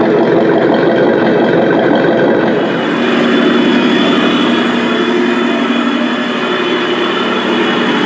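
Radio-controlled Leopard 2A6 toy tank driving across a hardwood floor, giving a steady mechanical running sound from its drive and tracks, which changes slightly about three seconds in.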